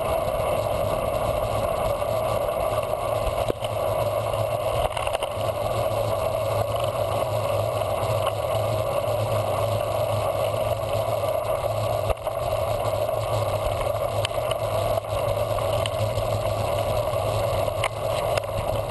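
Steady wind and road noise on the microphone of a handlebar-mounted camera on a road bike riding along a paved road, with a few faint clicks.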